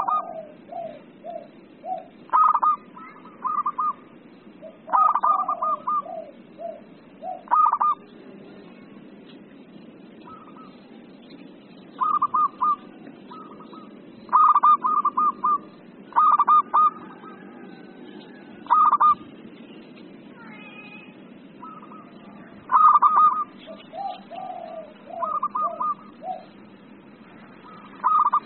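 Zebra dove (perkutut) singing excitedly: short bursts of quick, stuttering coos repeated every couple of seconds, some phrases ending in a few lower notes, over a steady low background hiss.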